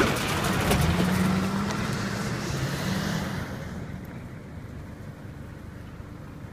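A motor vehicle's engine running close by, with a low hum, loud for about three seconds and then fading to a quieter steady rumble, with wind on the microphone.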